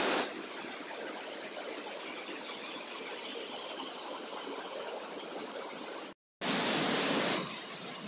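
Waterfall pouring over rock ledges: a steady rush of falling water. It cuts out for a moment about six seconds in, then comes back louder for about a second.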